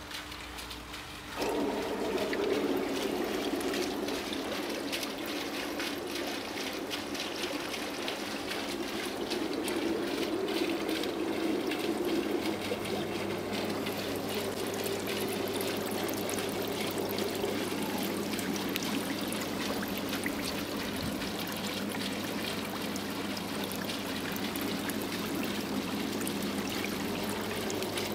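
Air bubbling hard up through ring diffusers in a pond filter's aeration chamber: a steady churning, splashing of water that stirs the Kaldnes moving-bed media. It comes in suddenly louder about a second and a half in, and a low steady hum joins about 12 seconds in.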